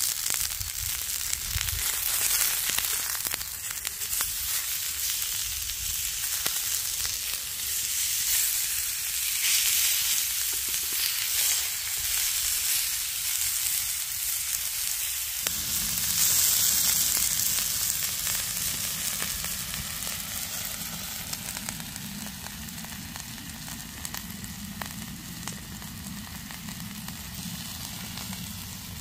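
Sirloin steaks sizzling and spitting in a very hot steel frying pan, just turned over onto their uncooked sides. The sizzle grows slowly quieter through the second half.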